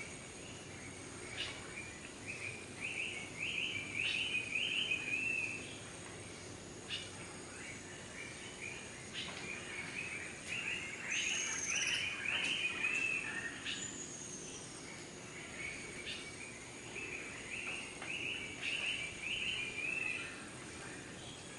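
Tropical jungle birds singing. One bird gives a quick run of repeated arched notes three times, over a steady high insect drone, with a few single whistled calls between the runs.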